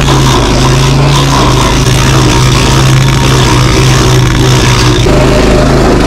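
JoBeau B13-90 stump grinder's petrol engine running hard while its cutter wheel grinds a stump. The engine note is steady and shifts slightly about five seconds in.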